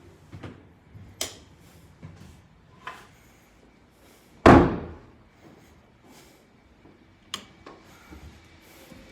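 A door shut firmly, one loud thud about four and a half seconds in, with several sharp clicks and light knocks before and after it.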